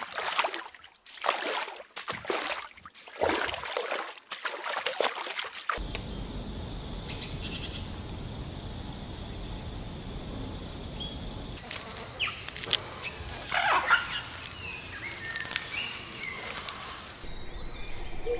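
Water splashing and trickling in short separate bursts. About six seconds in it gives way to a steady outdoor hiss with scattered short bird chirps, which grow busier and louder around two-thirds of the way through.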